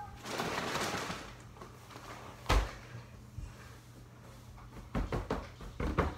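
Paper bedding rustling as it pours from a bag into a plastic bin cage, a single sharp knock about two and a half seconds in, then a run of quick taps and rustles near the end as hands spread the bedding against the plastic.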